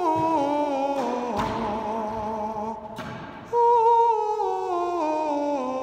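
A man singing long held notes that step down in pitch, in two falling phrases, the second starting about three and a half seconds in. The voice rings with the heavy echo of a racquetball court.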